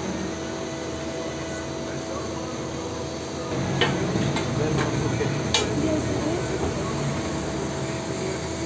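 Metal spatula scraping and clicking on a flat steel toast griddle, with a few sharp clinks from about four seconds in. Under it runs a steady hum.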